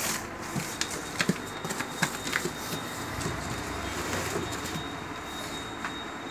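Cardboard flaps of a large shipping carton being pulled open and folded back by hand: scattered knocks and crackles of cardboard in the first couple of seconds, then a steady rubbing and scraping as the flaps are pushed down.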